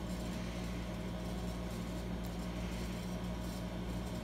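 Steady low background hum with no distinct clicks or knocks.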